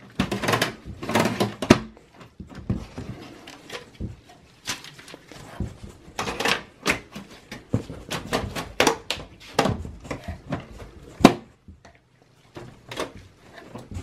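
Plastic front bezel of a Dell OptiPlex 7040 mini tower being fitted back onto its steel chassis: an uneven run of clicks, knocks and rattles as its clips are pressed into place, the sharpest snap a little after the middle.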